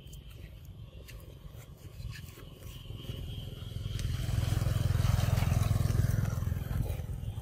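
A motorbike passing: its engine grows louder about halfway through, peaks, and eases off near the end, over a faint steady insect hum.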